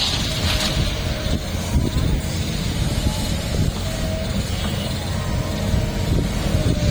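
Heavy diesel construction machinery running with a steady low rumble, with a few brief thin whines over it.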